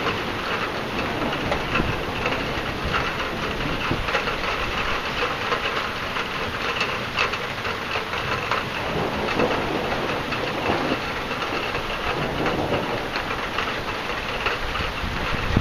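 Steady rain from a thunderstorm, an even rushing hiss with many small ticks of drops striking nearby surfaces.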